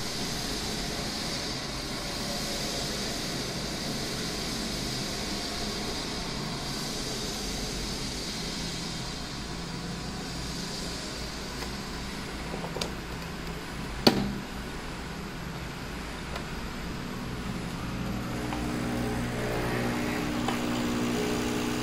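Capsule coffee machine: a steady hiss, then a sharp click about two-thirds of the way through. Near the end the pump starts and hums steadily.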